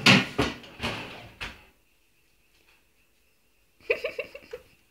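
Several sharp knocks and clatters of objects handled on a table in the first second and a half. About four seconds in comes a brief, quick string of voice-like sounds.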